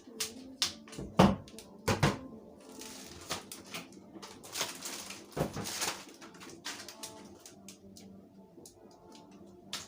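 Hands working contact paper and clear tape: a run of sharp knocks and taps, the loudest about one and two seconds in, with rasping stretches around three and five to six seconds in.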